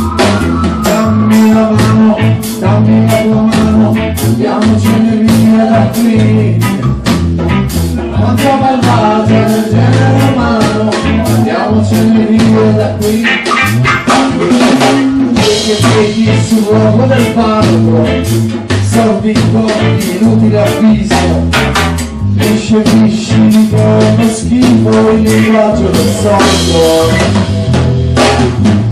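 Live dub band playing: drum kit keeping an even beat over a steady electric bass line, with guitar, and a man singing.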